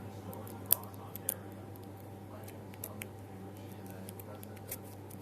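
Small, sharp clicks and ticks of a lock pick and tension wrench working the pins of a cheap pot-metal lock, the loudest click just under a second in, over a steady low hum.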